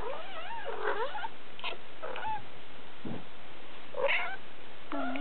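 Three-week-old Siberian kittens mewing: a quick run of short, wavering high-pitched mews in the first second, then single mews spaced out through the rest.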